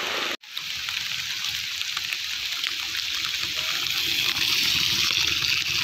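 Steady rushing hiss of rain and running water, broken by a brief moment of silence about half a second in.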